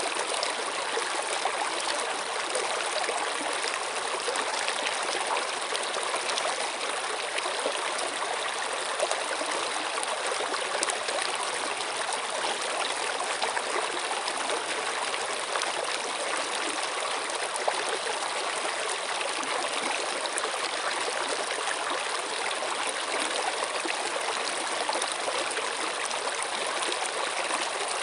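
Stream water flowing and trickling steadily, an even rushing with small splashes and no pauses.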